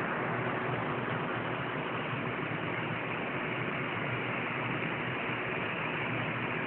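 Steady hiss with a faint low hum underneath, unchanging in level.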